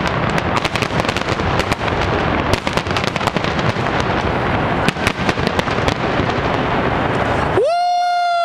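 Fireworks display: dense crackling and a rapid run of sharp bangs. Near the end this cuts off abruptly and a single steady high-pitched tone with overtones takes over.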